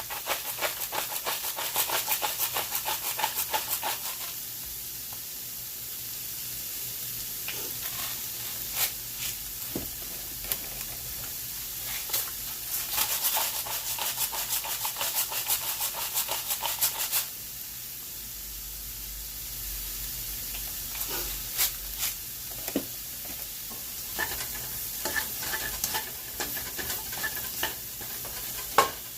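Vegetables sizzling as they sauté in a pot, with a spoon stirring and scraping against the pot in two quick bouts, one at the start and another about halfway through, and a few single knocks in between.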